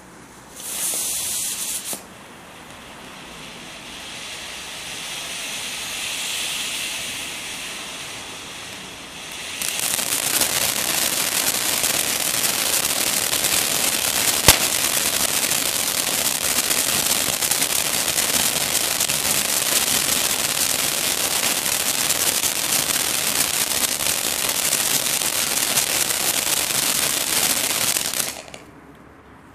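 Ground firework fountains spraying sparks. A short loud hiss comes about a second in, then a softer hiss swells and fades. At about ten seconds a loud, dense hiss takes over for roughly eighteen seconds, with one sharp crack partway through, and it cuts off near the end.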